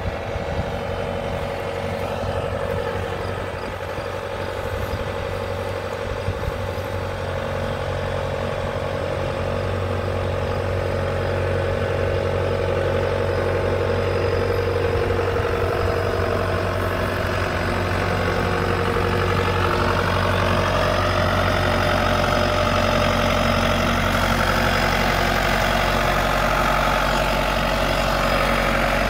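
John Deere 6200 tractor's four-cylinder turbo diesel engine running as the tractor drives, a steady hum that grows gradually louder as it comes closer.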